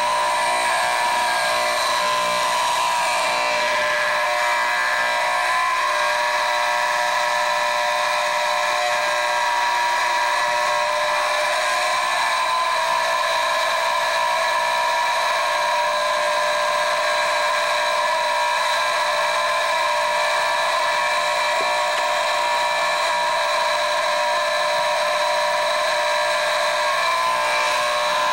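Building fire alarm sounding one steady, unbroken whining tone.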